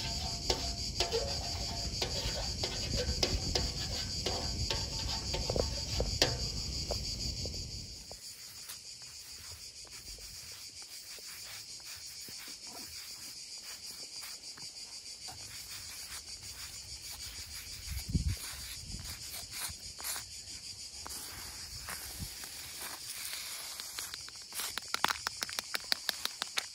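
Insects chirring steadily in a high, continuous band. A low rumble underneath dies away about eight seconds in, and a run of quick clicks comes near the end.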